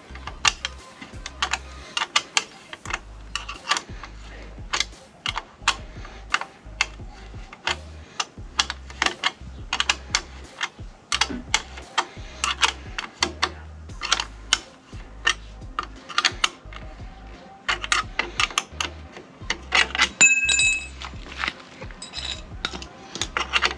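Irregular metallic clicks and clinks of a hand tool and screws against metal as license plate screws are fastened, with a short metallic ring about twenty seconds in.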